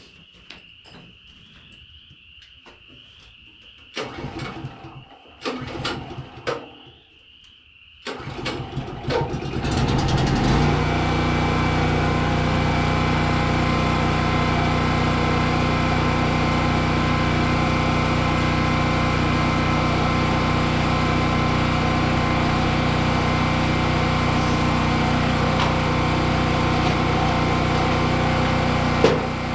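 Portable generator's small petrol engine starting, catching about eight seconds in and settling into a steady run.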